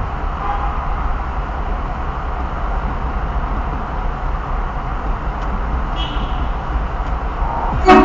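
Steady road and engine rumble heard from inside a car driving through a road tunnel. Near the end a HornBlasters aftermarket air horn starts a loud blast, a chord of several steady tones.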